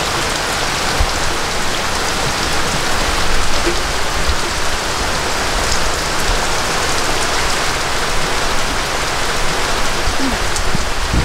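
Steady, heavy rain falling, an even unbroken hiss.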